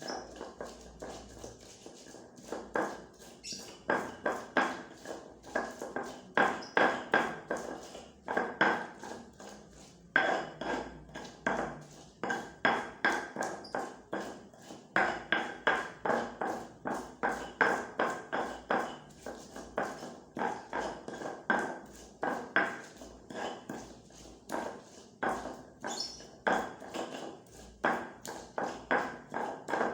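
Runs of sharp, rhythmic knocks, several a second, from food preparation in a home kitchen. A faint steady high tone sits underneath.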